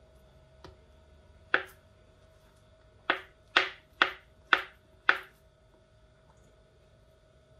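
Kitchen knife chopping potato on a plastic cutting board: one sharp knock about a second and a half in, then a run of five knocks, about two a second.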